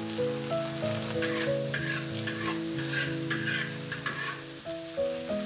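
Stir-frying cabbage and pork in a wok: the spatula scrapes and tosses the food in short strokes, about three a second, from about a second in until about four seconds, over the sizzle of the frying. Background music with held notes plays underneath.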